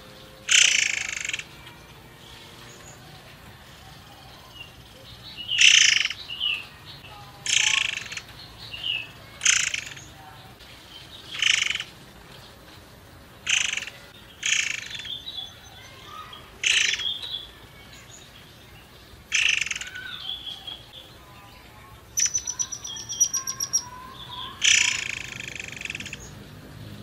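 A caged murai air songbird calling: about a dozen short, harsh, rasping calls every one to three seconds. A fast rattling trill comes a little over twenty seconds in, and a longer call follows near the end.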